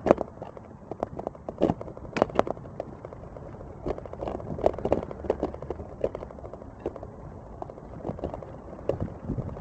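Wheels rolling over paving slabs, with irregular clicks, knocks and rattles as they cross the slab joints.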